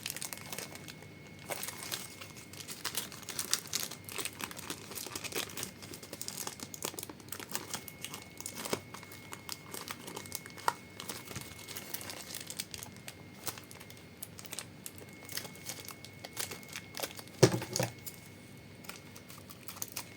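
Plastic blind-bag packaging crinkling and rustling as it is handled, with scattered small clicks and a louder knock near the end.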